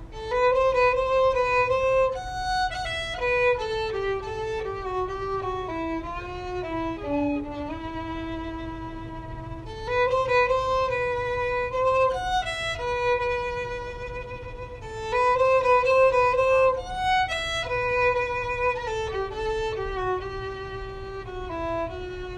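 Solo violin playing a slow melody of held notes, one line at a time. The opening phrase starts again about ten seconds in and once more about fifteen seconds in.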